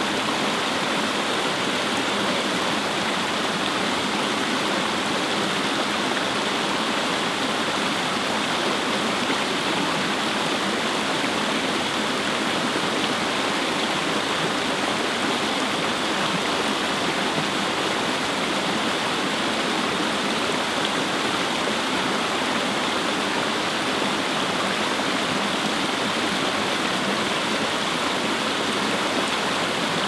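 Small waterfall spilling over rocks into a shallow stream pool: a steady, even rush and splash of falling water.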